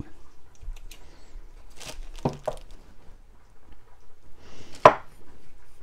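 Faint handling sounds: a few soft knocks and rustles, then one sharp click a little before five seconds in.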